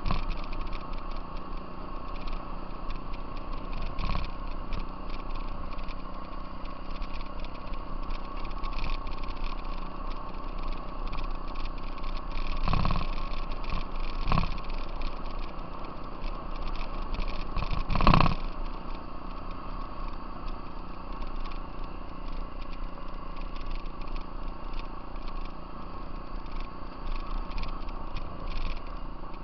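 Off-road vehicle riding along a gravel trail: engine running steadily under a constant rattle, with a few loud jolts or knocks, the loudest near the end of the middle stretch.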